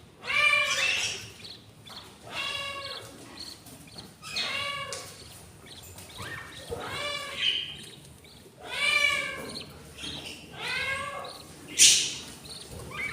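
Budgerigar chicks begging in the nest box: a run of short, raspy, pitched calls, one about every two seconds, with one sharper, louder call or squawk near the end.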